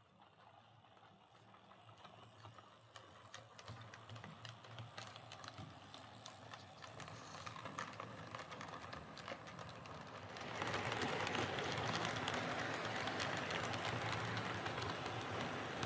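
OO gauge model tank locomotive (Oxford Rail Class 415 Adams Radial) running along the layout track, its motor whirring and wheels clicking over the rail joints, growing louder as it comes closer and louder again about ten seconds in.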